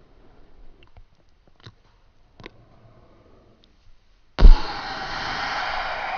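A person imitating ocean waves with their mouth: a few faint mouth clicks, then a little past four seconds a sudden loud breathy 'shhh' hiss like a wave washing in, held and easing off slightly near the end.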